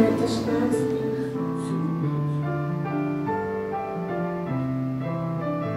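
Piano music playing slow, held notes and chords.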